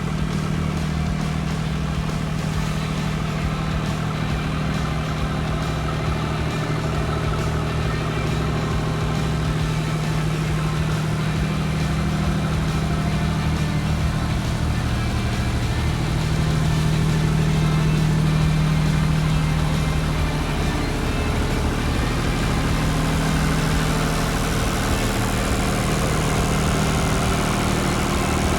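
Diesel generator set with a John Deere 3029 diesel engine running steadily at constant speed, a steady hum that swells slightly for a few seconds midway.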